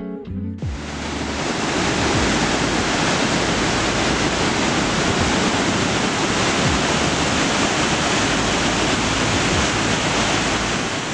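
Augrabies Falls on the Orange River: the steady, loud rush of a large waterfall, swelling in over the first two seconds after the last notes of guitar music die away.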